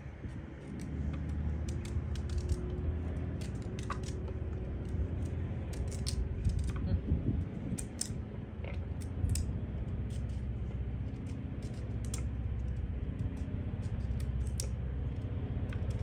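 Knives cutting and peeling raw pumpkin by hand: irregular sharp clicks and snaps as the blades go through the rind, over a steady low rumble.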